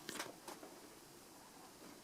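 Casablanca Delta II ceiling fan running quietly with a slight hiss, with two sharp clicks in the first half second.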